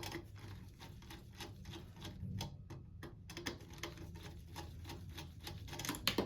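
Irregular small plastic clicks and taps, several a second, as wire connectors and jumpers are pulled off a pump's circuit board by hand, over a low steady hum.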